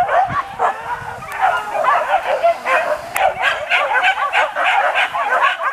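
A pack of hunting dogs yelping and barking together on the chase, many short, high yips overlapping in a constant rapid stream.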